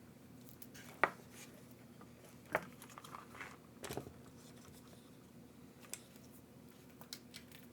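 A few sharp plastic clicks and snaps with light rustling, from hands working wires and small plastic parts into an RC truck chassis. The loudest click comes about a second in, with others at about two and a half and four seconds.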